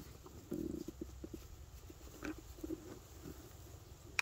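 Soft scraping and rustling of hands digging in dry soil and plant litter, loudest about half a second in, with a few faint clicks.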